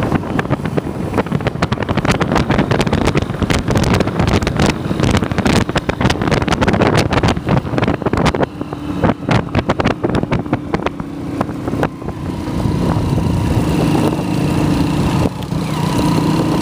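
Motorcycle taxi riding along a dirt road, its engine running under heavy wind buffeting on the microphone. About halfway the gusts ease and the engine's steady drone, with a whine above it, comes through clearly.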